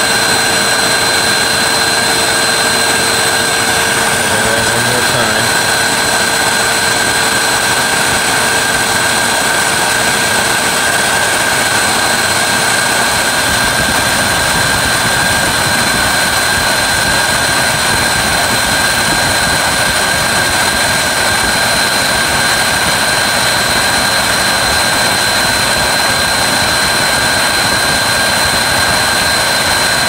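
Hoover WindTunnel 3 High Performance upright vacuum cleaner running steadily: a loud, even rush of air with a steady high motor whine.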